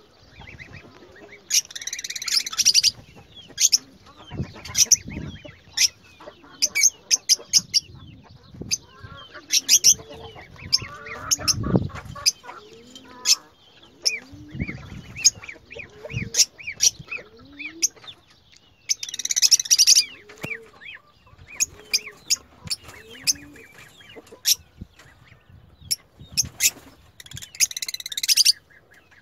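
Lovebirds calling: a steady run of sharp, quick chirps with louder bursts of harsh chattering about two seconds in, about two-thirds of the way through, and near the end, mixed with a few low thumps.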